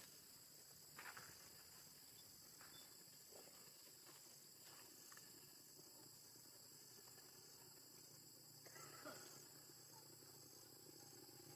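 Near silence with a faint, steady high insect drone, pulsing evenly, and two faint brief noises, about a second in and again near nine seconds.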